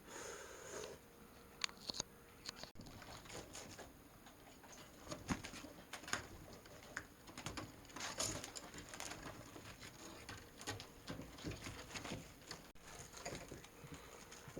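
Kittens romping indoors: scattered light patter, scratches and rustles of paws and claws at irregular moments.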